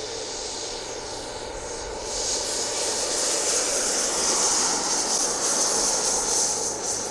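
Electric ducted fan of a scale RC jet, a 90 mm Wemotec unit, giving a high whine over a rushing hiss. It grows clearly louder about two seconds in as the throttle opens for the takeoff run on grass.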